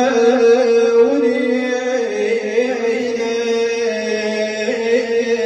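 A man's voice chanting a Shia lament (nai), holding long drawn-out notes without words. The pitch wavers, then steps down about two seconds in.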